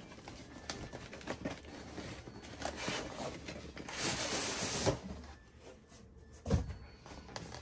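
Cardboard shipping box being opened and its inner box slid out: rustling, tapping and scraping of cardboard, with a longer sliding scrape about four seconds in and a thump a couple of seconds later.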